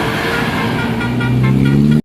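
A bus engine speeding up over steady road noise, its pitch rising through the second half.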